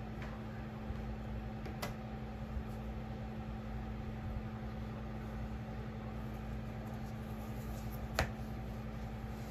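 Steady low hum with two sharp clicks: an Apple Pencil snapping magnetically onto the iPad's side about two seconds in, and the folding cover of a magnetic iPad case shutting onto the iPad near the end, the louder of the two.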